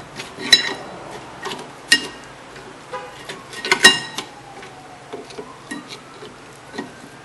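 Sharp metallic clinks and knocks from a screwdriver prying a rusty rear disc-brake caliper back and forth on its slide pins, the loudest about half a second, two seconds and four seconds in, each with a brief ring. The caliper slides fairly easily, a sign that the slide pins are not seized.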